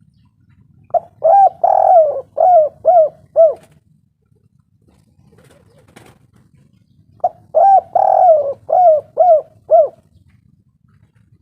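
Spotted dove (tekukur) cooing: two phrases a few seconds apart, each a string of six or seven rolling coos with one longer note near the start. A faint single click falls between the phrases.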